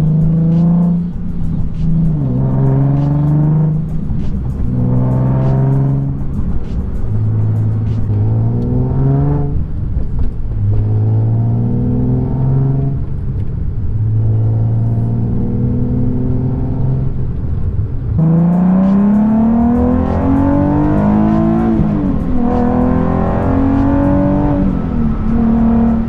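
Nissan 370Z's 3.7-litre VQ37 V6 exhaust, through a Fast Intentions true-dual catback, heard from inside the cabin under hard acceleration. Clips alternate between resonated test pipes and long tube headers. The engine note climbs in pitch and drops at each upshift, over and over.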